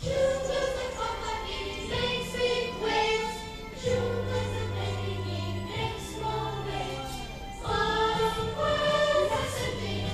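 A children's group singing a song together over instrumental accompaniment, with low bass notes held about two seconds each.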